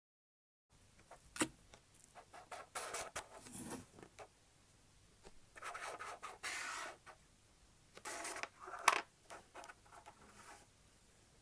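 Galaxy slime being squished and worked by hand, in irregular bursts of crackly, rubbing noise with a couple of sharp pops.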